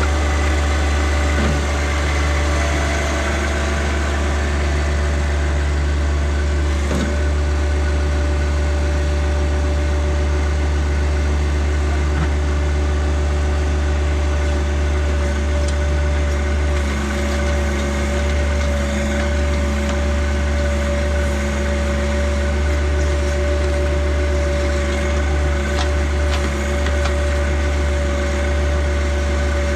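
John Deere tractor backhoe's engine running steadily with a deep, constant hum, with a steady whine that becomes clear about halfway through.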